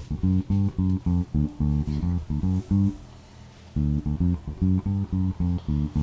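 Background music: a staccato bass-guitar riff of short repeated notes. It breaks off for under a second about three seconds in, then starts again.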